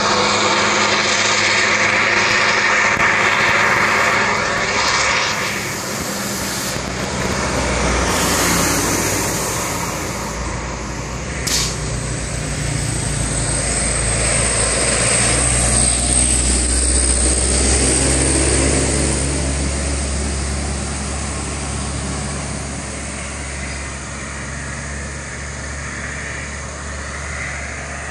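Road traffic passing close by: a bus, trucks and motorcycles going past, their engine and tyre noise swelling and fading. A single sharp knock sounds about eleven seconds in.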